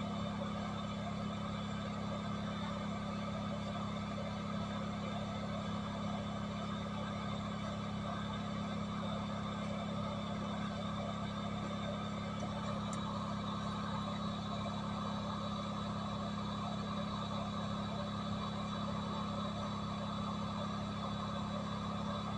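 Hot-air rework station blowing steadily, a constant hum and hiss, as it heats the replacement eMMC chip to reflow its solder onto the Redmi 2 board.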